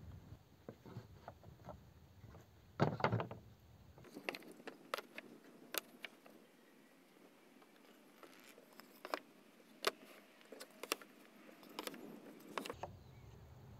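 Wooden pallet boards being set down and slid into place on a tabletop: scattered light wooden knocks and clatter, with a loud cluster of knocks about three seconds in.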